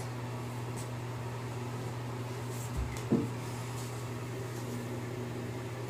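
Steady low hum with a faint hiss over it, and one soft low bump about three seconds in.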